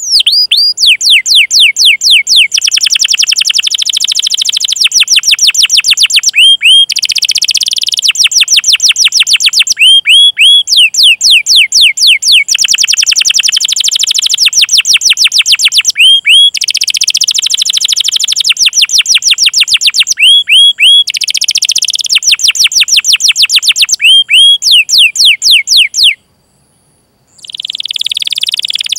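Domestic canary singing: fast series of falling whistled 'cuit' notes, several a second, alternating with dense rolling trills. The song breaks off for about a second and a half near the end, then resumes.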